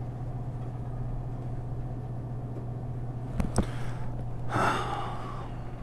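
Steady low hum of a supermarket's refrigerated display cases and ventilation, with two sharp knocks about three and a half seconds in and a short rush of noise about a second later.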